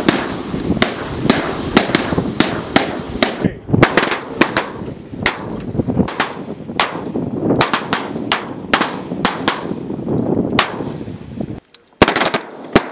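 Several 5.56 mm M27 Infantry Automatic Rifles firing from a firing line: loud, irregular, overlapping shots, several a second, each with an echoing tail. The sound cuts out briefly near the end, then a few more shots follow.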